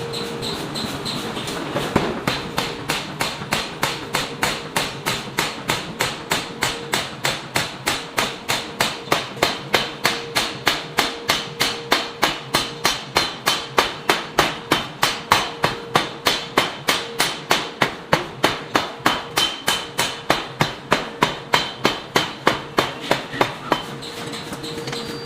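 Hammer blows forging a block of iron, struck in a fast, even rhythm of about three a second. The hammering starts about two seconds in and stops near the end, over a steady hum.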